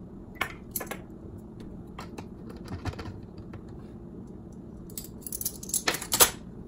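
Light clicks and clinks of a metal tablespoon and bottles handled on a countertop as coconut oil is measured out, with a quick run of louder clinks near the end.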